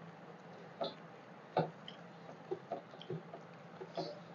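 Close-up eating sounds as rice and curry are eaten by hand: a handful of short mouth smacks and clicks while chewing, scattered irregularly, the loudest about one and a half seconds in.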